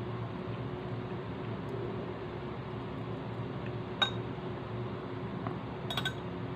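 Metal chopsticks clink sharply against a dish once, about four seconds in, then tap it a few more times in quick succession near the end, over a steady low hum.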